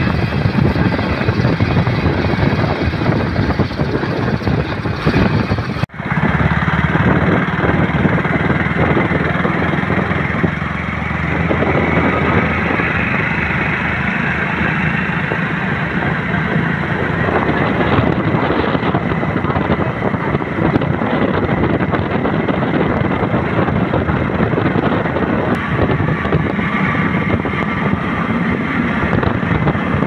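Motor scooter engine running while riding, with wind rushing over the microphone. The sound drops out for an instant about six seconds in.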